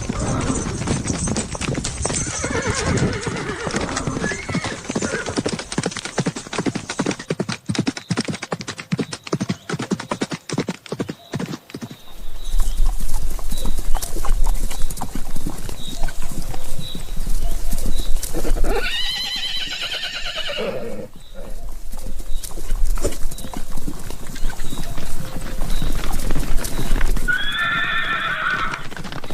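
Horse hooves galloping in a fast, dense clatter, a stampede sound effect that gets louder and heavier partway through. A horse whinnies about two-thirds of the way in and again near the end.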